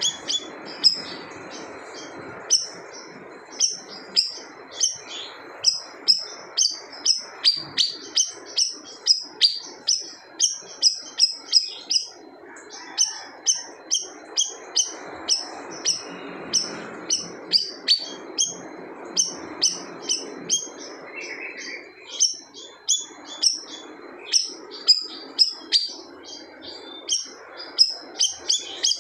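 Siri-siri songbird singing continuously in full voice: a fast run of short, sharp high notes, about two a second, with a brief pause about three-quarters of the way through, over a steady background hiss.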